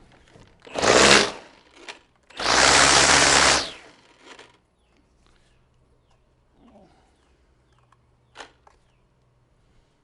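Milwaukee M18 battery string trimmer's brushless motor triggered twice in short bursts, the head spinning up for about a second each time, the second run slightly longer. A single sharp click follows a few seconds later.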